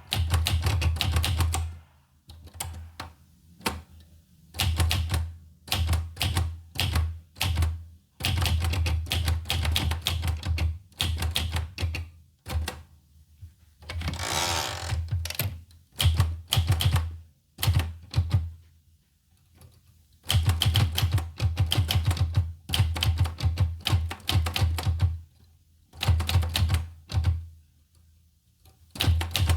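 Olivetti Lettera 25 manual portable typewriter being typed on: runs of fast keystrokes broken by short pauses, with a scraping sound lasting about a second midway.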